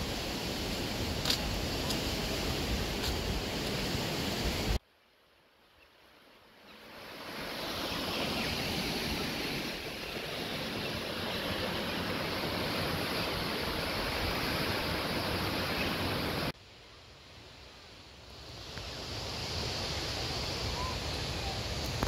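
Steady rushing of the River Ribble running fast through rapids. The sound cuts off suddenly twice and swells back in over a couple of seconds each time.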